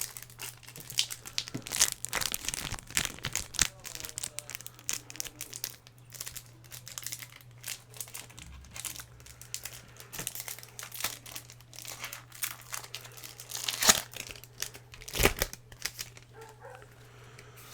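Foil wrapper of a Pokémon booster pack crinkling and tearing as it is handled and opened close to the microphone, in many quick crackles, loudest twice near the end. A steady low hum runs underneath.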